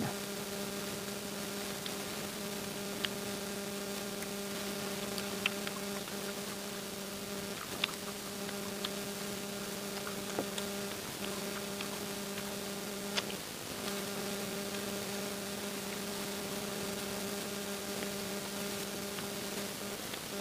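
A steady electrical hum with a strong low tone and a fainter overtone above it, dipping briefly twice. Over it come a few faint, sharp clicks of chewing at irregular intervals.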